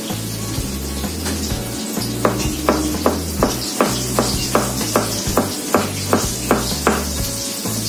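Kitchen knife chopping garlic on a plastic cutting board: a run of quick, even knife strikes, about two to three a second, settling into a steady rhythm about two seconds in. Background music with a steady beat plays underneath.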